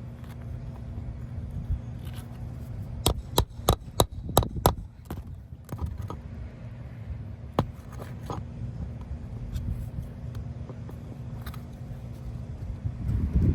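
A quick run of about six sharp knocks, with scattered scrapes after it, from a tool working loose a piece of roofing, over a steady low hum.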